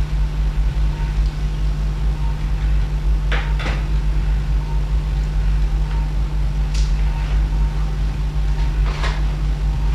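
Steady low hum of operating-room equipment, with a few brief clicks and knocks about three and a half, seven and nine seconds in.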